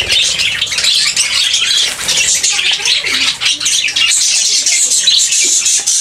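A flock of budgerigars chattering with dense, overlapping high chirps.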